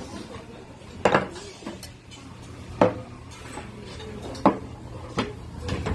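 Tableware clinking around a large steel dakgalbi pan: a metal spatula and small dishes knocking on metal, about five sharp clinks spaced a second or two apart, over a low steady hum.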